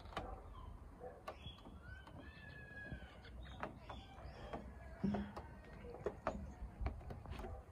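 Birds chirping and calling over a low rumble, with scattered clicks.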